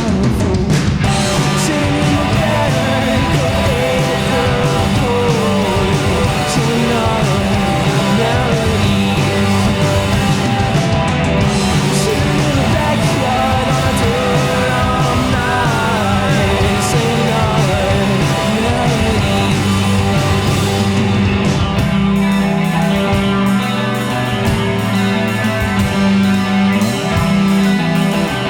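Live rock band, a three-piece of electric guitar, bass and drums, playing an instrumental stretch of a song, loud and steady.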